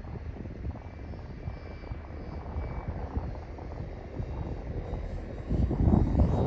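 J-65 radio-controlled model jet flying with a thin, high whine, growing clearly louder about five and a half seconds in as it comes nearer.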